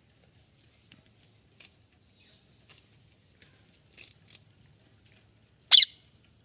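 Ring-necked parakeet giving one short, loud, high-pitched squawk near the end, after a few faint soft chirps and clicks, over a faint steady hiss.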